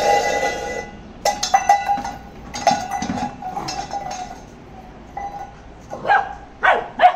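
Labrador puppy barking in short, high-pitched yips, ending with three sharp barks close together near the end. A steady high tone lasts about the first second.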